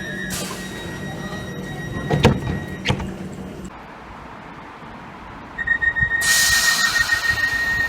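Train passenger doors closing. A steady warning tone sounds, then the doors shut with two knocks about two seconds in. Near the end a rapid beeping warning starts again under a loud hiss of air.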